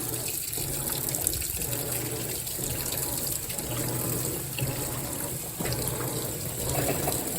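Whirlpool WTW4815EW1 top-load washer filling: water pouring into the tub steadily while the agitator runs.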